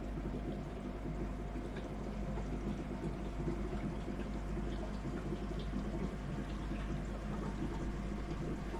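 Water running and trickling in an indoor koi tank, with a steady low hum underneath.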